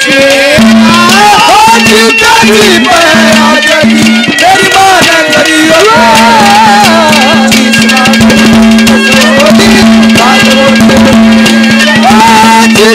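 Amplified Haryanvi ragni folk music: drums keep a busy rhythm under a wavering melody and a steady drone, all loud.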